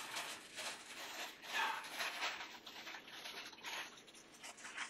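Small plastic packaging being handled and worked open, rustling and crinkling in quiet, irregular strokes.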